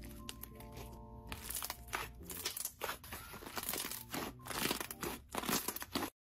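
Thick slime being squeezed and folded by hand, giving a dense run of sharp crackles and pops over faint background music. It all cuts off suddenly just before the end.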